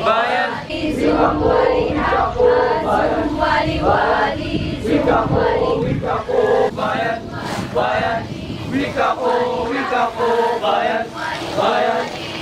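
A mixed group of young men and women reciting verse together in unison in Filipino: sabayang pagbigkas, or choral speaking.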